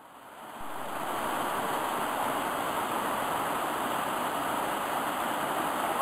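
Small waterfall cascade on a stream, water rushing steadily over rocks into a pool. It fades in over the first second, then holds steady.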